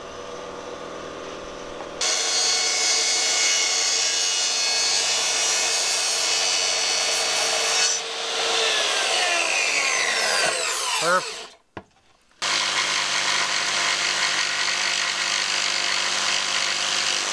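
Makita plunge track saw cutting plywood along its guide rail, then its motor winding down with a falling whine about eight seconds in. After a brief gap a jigsaw runs on the plywood, winding down again at the very end.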